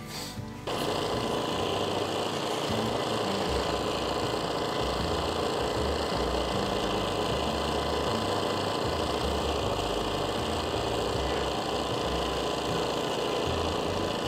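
A small motor running steadily at an even pitch, starting just under a second in: a power tool or small engine.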